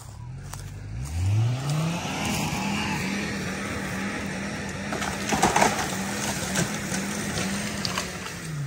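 Chevrolet Colorado pickup's engine revved hard under load: it climbs quickly about a second in, then holds near the rev limiter with a wavering pitch, bouncing off it, before dropping right at the end. A brief loud burst of noise comes about halfway through.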